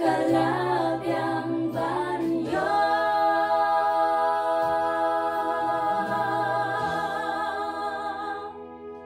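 Voices singing a hymn over sustained keyboard chords, then holding a long final chord that stops about eight and a half seconds in while the keyboard tone carries on.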